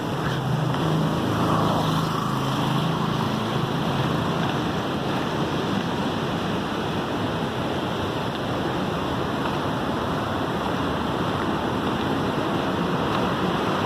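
Steady rush of heavy floodwater, with wind buffeting the microphone and a faint low hum in the first few seconds.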